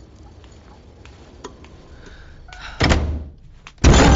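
A wooden front door pushed shut with a heavy thud about three seconds in, after quiet room tone. Just before the end a sudden loud crash sets in.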